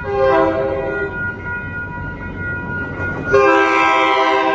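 MBTA commuter rail train sounding its horn as it approaches a level crossing, the standard warning to road traffic. One blast near the start, then a second, louder blast about three seconds in, with a low rumble between.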